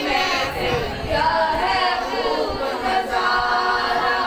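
A boy singing a naat unaccompanied into a microphone, in long held lines that glide up and down in pitch.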